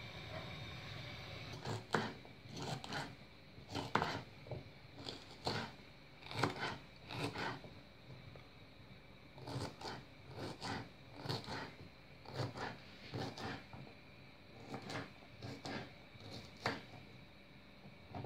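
Knife chopping asparagus stalks into small rounds on a wooden cutting board: sharp, irregular knocks of the blade against the board in runs of a few strokes with short pauses, starting about two seconds in and stopping just before the end. Before the chopping there is a low steady hum.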